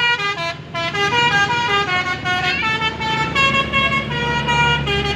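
Tour bus's telolet basuri horn playing a quick melody of short stepped notes, with the bus engine's low rumble underneath that grows louder about four seconds in as the bus passes.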